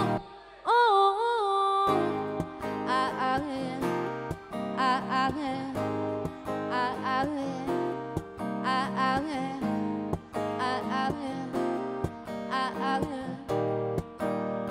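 Acoustic guitar strummed in a steady rhythm, with a woman's voice holding a sung note with vibrato in the first two seconds.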